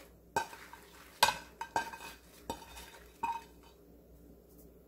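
About half a dozen light clinks and knocks of a plate against a glass mixing bowl as steamed, flour-coated shishito peppers are pushed off it into the bowl by hand.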